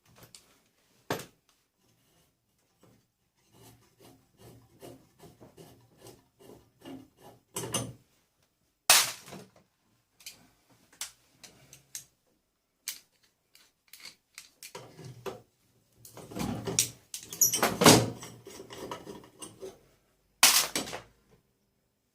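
A disco lighting unit being handled and taken apart by hand: a run of small clicks and rattles, with louder clatters of parts knocking together about nine seconds in, a busy stretch of clattering later on, and one more clatter near the end.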